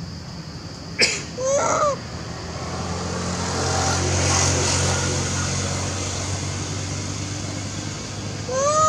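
Two short rising-and-falling monkey calls from a long-tailed macaque, one about a second and a half in and one near the end. A sharp click comes just before the first call, and a low engine-like hum swells in the middle under a steady high-pitched drone.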